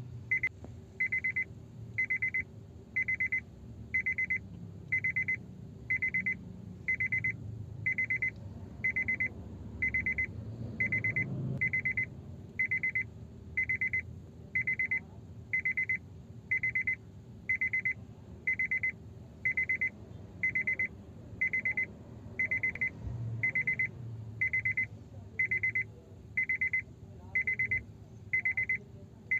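Car key-reminder warning chime beeping steadily, one high beep about every second.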